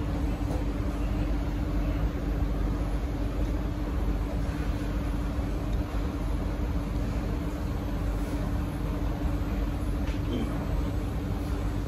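Steady low rumble and hum inside a Kawasaki & CRRC Sifang C151C metro car standing at a platform with its doors open, its onboard equipment running while the train is at rest, with a single steady hum note.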